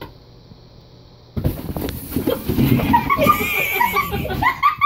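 About a second and a half in, loud laughter from several people breaks out, in short bleating peals, over the scuffling and bumping of a cat scrambling about in a cardboard box.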